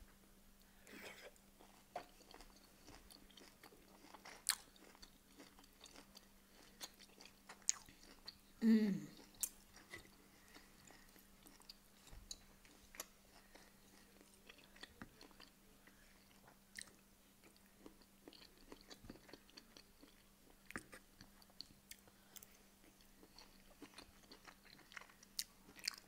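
Close-up chewing of steak, with scattered light clicks of a steel knife and fork against a wooden board. About nine seconds in, a brief low hum falls in pitch.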